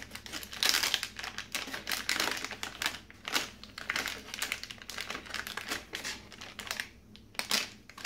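Crinkling and crackling of a silver anti-static plastic bag being handled as a circuit board is slid back into it, with dense irregular crackles.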